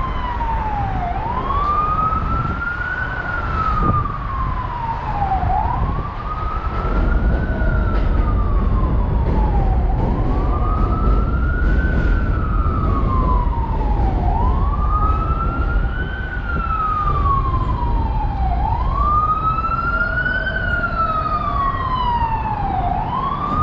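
Emergency vehicle siren in a slow wail, rising quickly and falling slowly about every four seconds. A second, higher siren joins faintly about two-thirds of the way in, over a steady low rumble.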